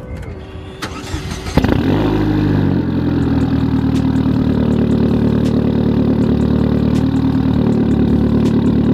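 Chevrolet C8 Corvette's V8 cold start: the starter cranks briefly, the engine catches with a loud flare of revs about a second and a half in, then drops within a second to a steady fast idle.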